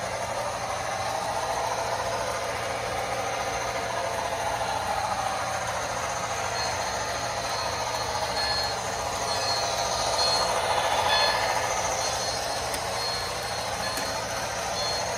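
Lionel HO scale diesel locomotive's onboard sound system playing steady diesel engine sound, mixed with the model train's wheels rolling on the track as the train runs at speed. It swells slightly about ten seconds in.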